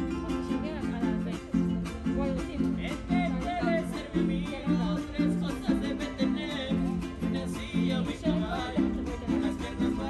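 Two small acoustic guitars strummed together in a steady, even rhythm, Latin-style street music.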